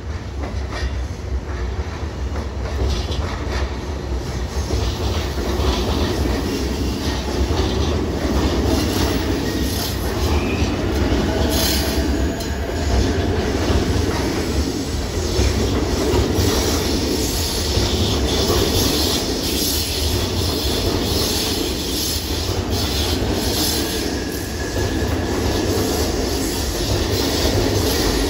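JR East E531-series electric multiple unit passing close by: a steady rumble and rattle of steel wheels on the rails, with faint wheel squeal now and then as the long train goes by.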